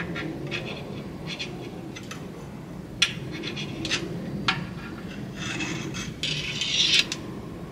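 A magnet taped to a screwdriver scraping and tapping inside an empty tank while fishing out metal drilling chips: a few sharp clicks, then a scraping rasp near the end.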